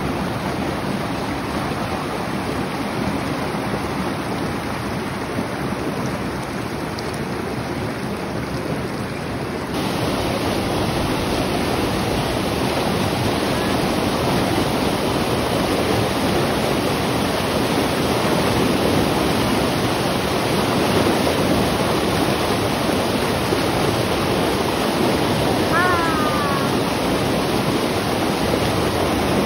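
River water rushing steadily, a little louder from about ten seconds in, with a brief faint chirp near the end.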